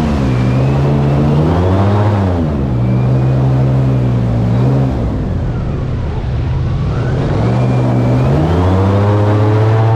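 A boat's outboard motor running under way, its pitch dropping and rising as the throttle is eased back and opened up again: it throttles down about halfway through, then climbs back up.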